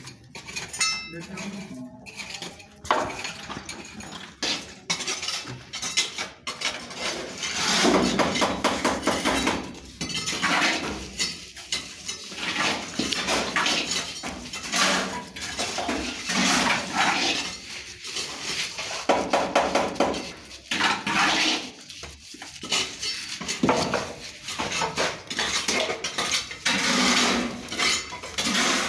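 Metal tools scraping and clinking against wet cement mortar in repeated passes of a few seconds each, as mortar is packed around a lighting junction box set into a wall.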